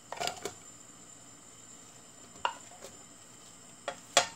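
Sliced onion dropping into a non-stick wok while chopsticks scrape and tap it off a plate: a few short clatters, the loudest pair near the end.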